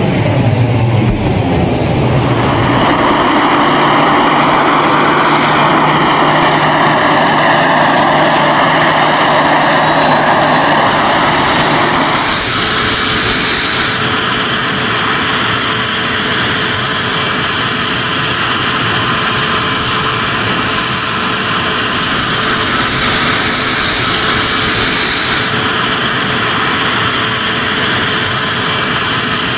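T-45 Goshawk jet trainer's Rolls-Royce Adour turbofan running on the ground: a steady high-pitched turbine whine over a rushing jet noise. The sound changes abruptly about twelve seconds in, and the whine carries on.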